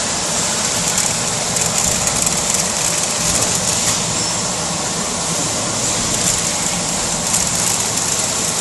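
Chocolate chip machine running steadily: a low mechanical hum under a dense, high, flickering hiss of small chocolate chips dropping off the perforated steel conveyor belt into the steel tray below.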